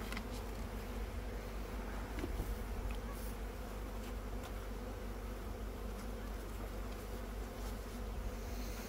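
Honeybees buzzing around an open hive, a steady even hum, with a few faint clicks.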